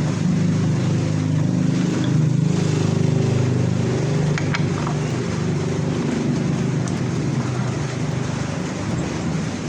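Milling machine running with its cutter turning: a steady mechanical drone with a low hum and a noisy cutting hiss above it.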